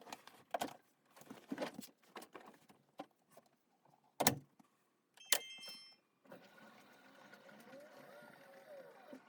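Panasonic NA-VX9300L drum washing machine under a service-mode operation check after its dampers were replaced. Scattered clicks and knocks give way to a short beep about five seconds in. About a second later the drum motor starts running with a steady whir that wavers in pitch.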